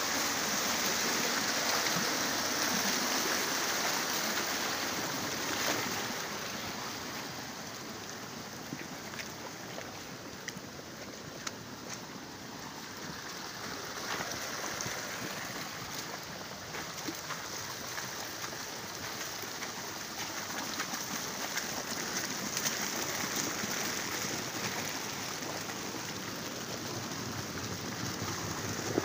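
Muddy flash-flood water rushing fast down a narrow stone-walled channel: a dense, steady rush of water with scattered faint ticks, loudest for the first few seconds and easing slightly in the middle.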